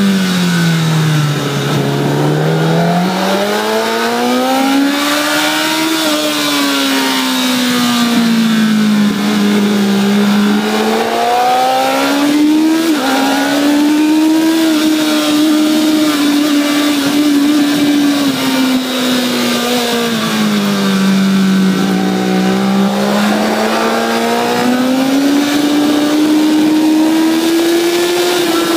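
Honda CBR1000RR's inline-four engine at high revs under hard riding, its pitch climbing and falling repeatedly as the rider accelerates and rolls off through the bends, with a brief break in the note about halfway through. Steady wind rush at speed lies under it.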